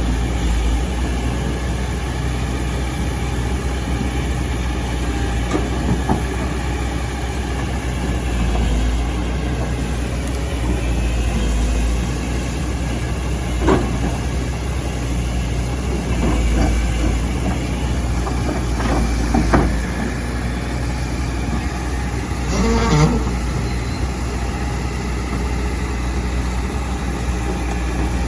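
Excavator's diesel engine running steadily while digging, with a handful of brief louder knocks and squeals from the working machine at scattered moments.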